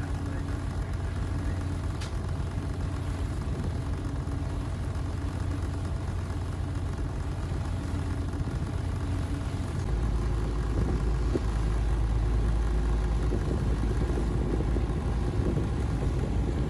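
Boat engine running steadily, growing louder and deeper about ten seconds in.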